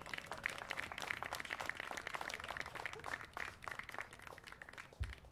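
Audience clapping, a dense patter of many hands that fades away near the end, with a single low thump just before it stops.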